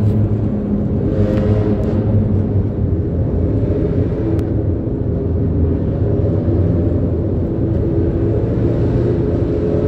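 Steady engine drone and rumbling road noise of motor vehicles travelling through an undersea road tunnel, the sound filling the enclosed tunnel.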